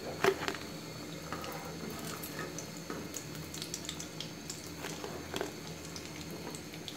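Battered eggplant slices (beguni) frying in hot oil in a nonstick wok: a low, steady sizzle with scattered small crackles.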